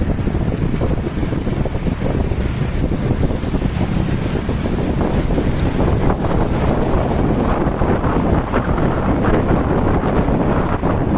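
Heavy wind buffeting on the microphone over the low, steady rumble of a tour bus's engine and exhaust.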